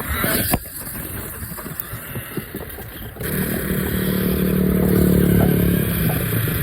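Rattling, clattery rolling noise, then about three seconds in a steady motor hum starts and grows louder, holding one pitch.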